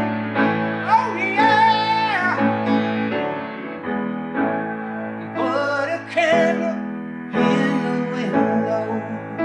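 Music: sustained keyboard chords under a melody of long notes that waver in pitch.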